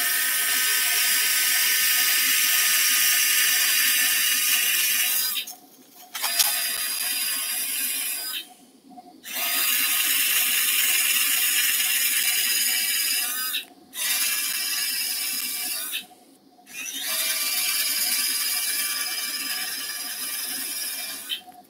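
Powered surgical pin driver running as it drives a small steel pin through a dog's femur toward the distal condyle: a steady high whine in five long runs, each broken off by a pause of about a second.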